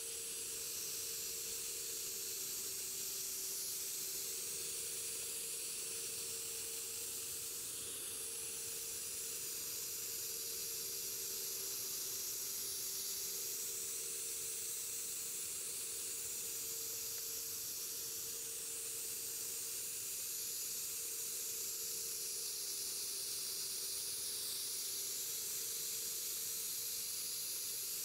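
Gravity-feed spray gun hissing steadily as it sprays clear coat in long continuous passes, with a faint steady hum underneath.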